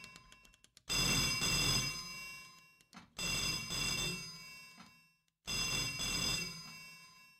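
Old-fashioned telephone bell ringing: three rings about two seconds apart, each fading away before the next.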